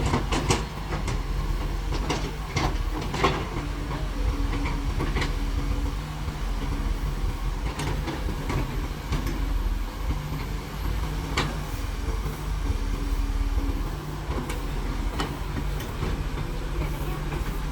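Excavator's diesel engine running, its note swelling and easing in spells as it works, with scattered sharp knocks and clanks.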